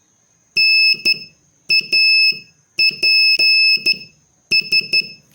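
Morse code beeps in a single high-pitched tone, spelling the word NAPS: dah-dit, dit-dah, dit-dah-dah-dit, dit-dit-dit.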